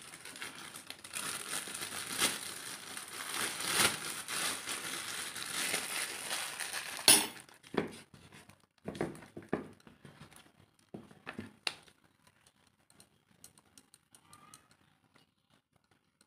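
Crinkly rustling handling noise for about seven seconds, ending in a sharp click, followed by scattered light scrapes and taps as a hand works on a plate.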